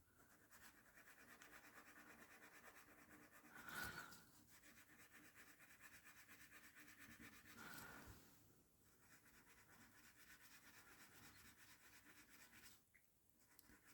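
Faint, rapid back-and-forth rubbing on the surface of a trading card, polishing out a scratch near the top corner. Two slightly louder swells come around four and eight seconds in.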